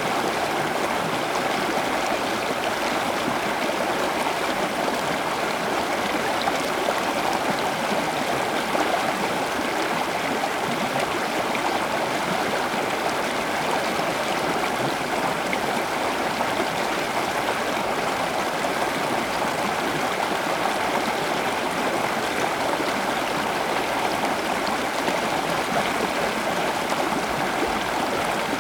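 Running water flowing steadily like a stream, an even rushing and trickling that neither rises nor falls.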